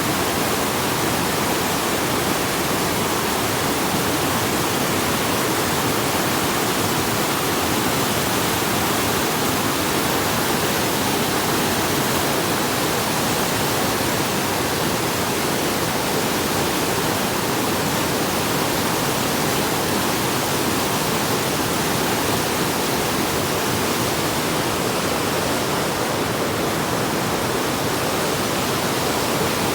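A steady, unbroken rushing noise, spread evenly from low to high pitches, with no separate events or changes.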